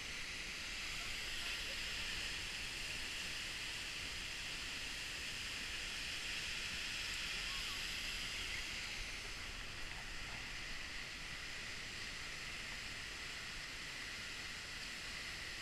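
Steady rushing roar of the Seljalandsfoss waterfall's falling water, an even hiss with no change in level.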